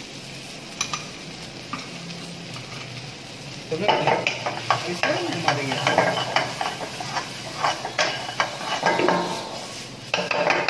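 Chopped onion, chilli and spice masala sizzling in hot oil in a kadhai. From about four seconds in, a metal ladle scrapes and clatters round the pan as the masala is stirred and fried, with a last short burst of scraping near the end.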